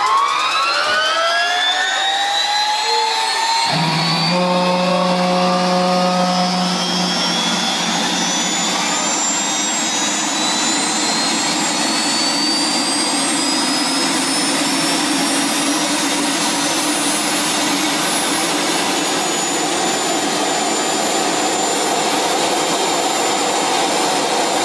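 MTT Y2K superbike's Rolls-Royce Allison helicopter turbine starting up with a high whine that climbs quickly in pitch, then keeps rising slowly as the turbine spools up. A deeper steady tone joins about four seconds in.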